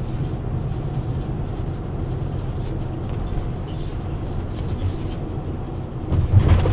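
Steady low engine and road rumble inside a moving vehicle's cabin, with a louder low thump about six seconds in.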